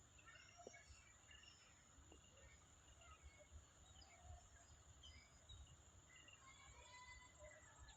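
Faint, scattered small-bird chirps with a steady high-pitched whine underneath.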